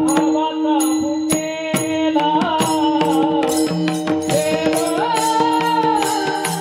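Devotional kirtan accompaniment music: a held melody over a steady drone, with percussion beats throughout.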